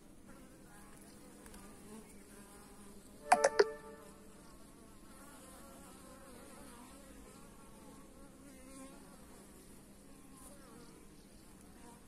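Honeybees buzzing at a hive entrance: a faint, steady hum of many wingbeats. A little over three seconds in, one bee passes close and gives a sudden loud buzz lasting about half a second.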